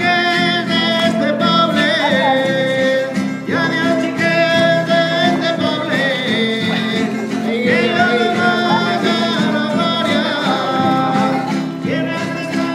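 Traditional Valencian folk dance tune played live on strummed acoustic guitars in a steady rhythm, with a voice singing long, wavering held notes that slide between pitches over them.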